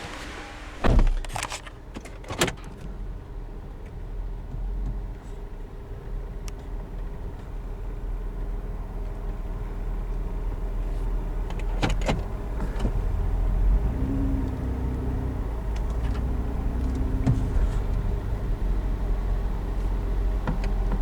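A car door shutting with a thump about a second in, then a 2008 Chevy Equinox's engine and road noise heard from inside the cabin as it drives: a steady low rumble that grows slowly louder.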